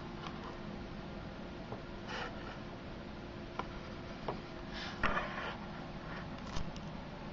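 Steady low room hum, broken by a few brief clicks and short rustling noises from the handheld camera being moved about.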